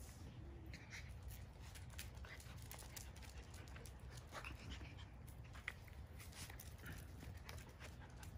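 Quietly, two miniature schnauzers play-fight: panting and scuffling with many short clicks, and a few brief high squeaks.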